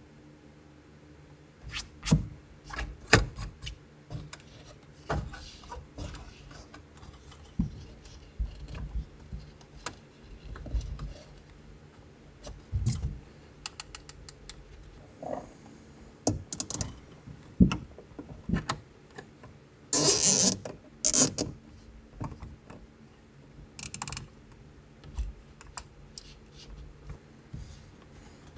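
Scattered clicks and knocks of a sun visor clamped to a roll-cage bar being folded up and down, with a louder rustling scrape about two-thirds of the way through.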